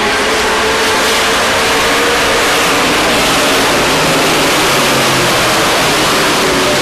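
A pack of stock race trucks running at speed around an oval track, many engines at once, giving a loud, steady blend of engine noise.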